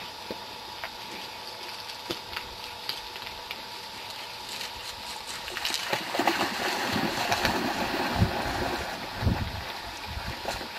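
Running river water, with scattered sharp clicks and a few low thumps; the water noise grows louder from about halfway through.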